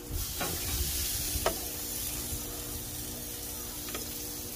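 Steak marinade of butter, soy and Worcestershire sizzling steadily in a metal pan on a hot grill, with a few light clicks of metal tongs against the pan as the steaks are lifted.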